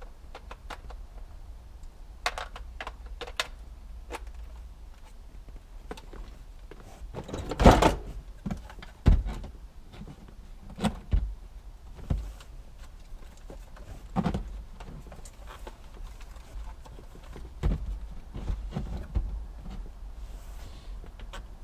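Scattered clicks, knocks and thumps of hands working plastic wiring-harness connectors under a car dashboard, the loudest thump about eight seconds in.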